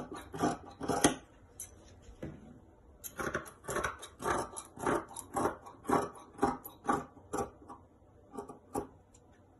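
Fabric shears snipping through folded denim: a run of crisp cuts, about two a second, with a lull between about one and three seconds in.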